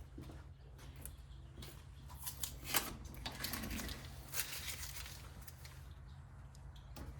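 Adhesive tape being peeled off a retractable screen cassette, with light rustling and a few small clicks from handling the cassette.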